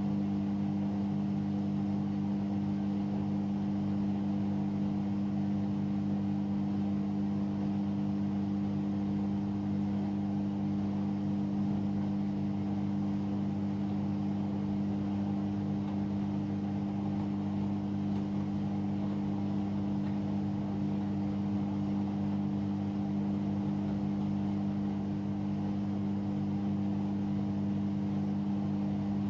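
Hoover washing machine running with a steady, unchanging hum during a sudslock on its final spin, the state it falls into when too much foam is detected in the drum.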